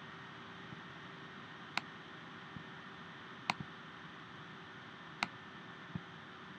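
Steady whirring of the computer recording the screen, with a faint hum, under three sharp computer clicks about a second and three-quarters apart and a few softer clicks between them.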